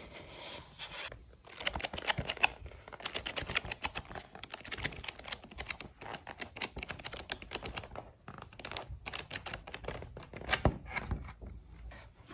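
Paper and cardboard being handled: crisp rustling and crackling as the pages of a large book, including a thin translucent sheet, are turned, with a few sharper taps.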